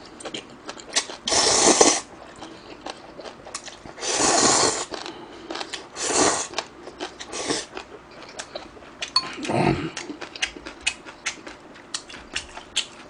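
A man slurping instant ramen noodles loudly off chopsticks, in three long sucking draws about a second, four and six seconds in, with wet chewing and smacking clicks in between.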